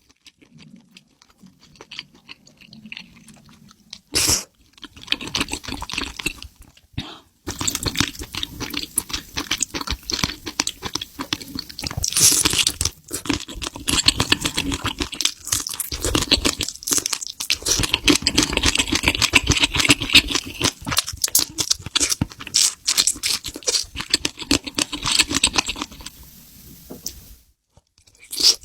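Close-miked crunching and chewing of seafood, quieter for the first several seconds, then a dense run of crunches with a brief pause near the end.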